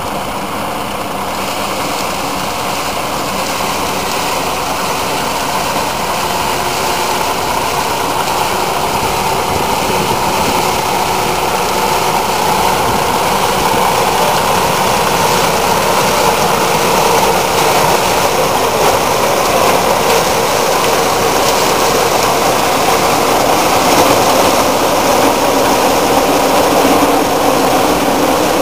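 Vintage tractor towing a trailed combine harvester through standing wheat: the tractor engine and the combine's machinery run steadily together, growing gradually louder as the machine comes close.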